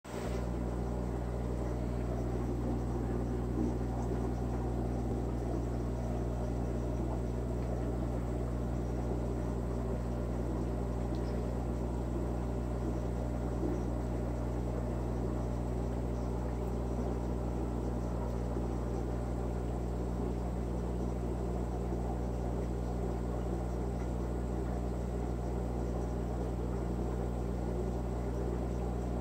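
Aquarium sponge filter bubbling steadily over a constant low hum, unchanging throughout.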